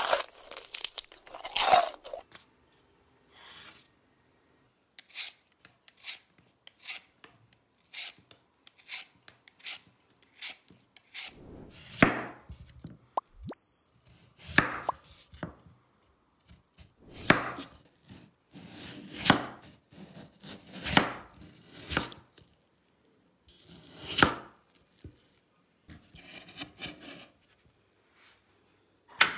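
A large kitchen knife cuts through a peeled raw potato and strikes a bamboo cutting board in separate chopping strokes a second or two apart. The strokes are faint at first and much louder from about halfway through.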